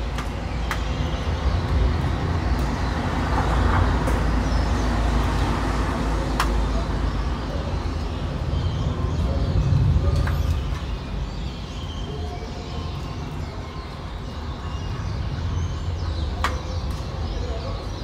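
City neighbourhood ambience: a steady low traffic rumble, with a vehicle passing about ten seconds in, faint bird chirps and a few sharp ticks.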